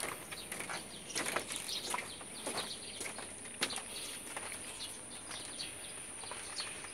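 A dog's claws making scattered light clicks and taps on wooden deck boards as it walks and sniffs, most of them in the first few seconds. Under them runs a steady high insect drone.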